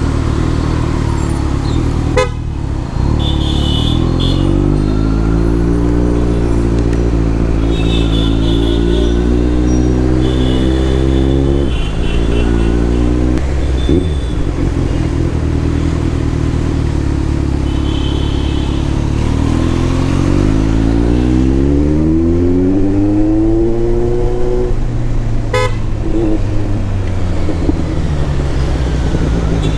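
Kawasaki Z900's inline-four engine accelerating, its pitch rising steadily and then dropping suddenly at gear changes about twelve and twenty-six seconds in. Other vehicles' horns honk briefly several times.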